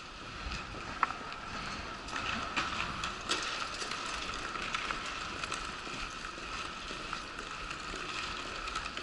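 Wheelchair rolling across a hard tiled floor: a steady rattle of wheels and casters with many small irregular clicks, and one sharper click about a second in.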